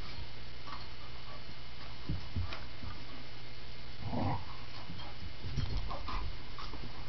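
A beagle and an American Bulldog play-fighting: scattered short dog vocal sounds and scuffling thumps, with one louder vocal burst about four seconds in.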